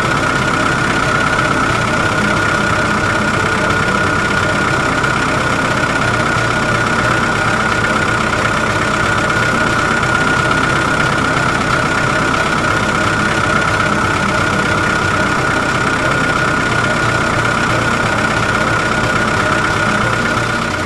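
Radio-controlled excavator running: a steady mechanical drone with a constant high whine.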